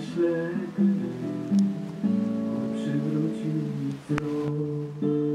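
Instrumental music led by a plucked guitar playing a slow run of chords, with a short click about four seconds in.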